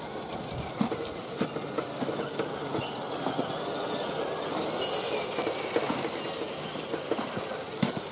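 Axial SCX10 1/10-scale RC crawler driving along a dirt trail, its electric motor and drivetrain whirring, with scattered knocks and clicks as it rolls over the ground.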